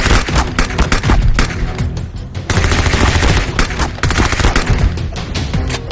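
Rapid, dense volleys of gunfire-like shots over background music, with a brief lull a little over two seconds in.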